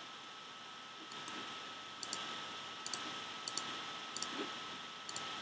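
Computer mouse button clicks, about six of them roughly a second apart, each a quick double tick of press and release, over a faint steady hiss.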